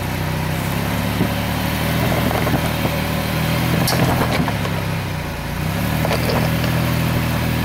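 A 4x4 SUV's 3.0-litre V6 engine running at low revs as it crawls over a rock step, its note swelling and easing with the throttle. A few sharp knocks come about halfway through.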